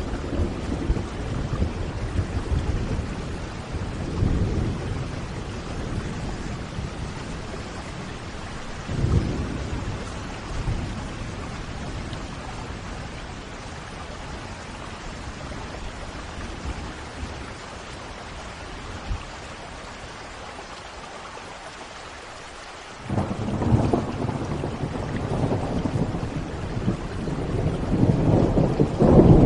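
Steady rain with rolling thunder. Low rumbles come in the first few seconds and again briefly about nine seconds in. About three-quarters of the way through, a sudden loud rumble of thunder breaks in and keeps rolling, growing louder near the end.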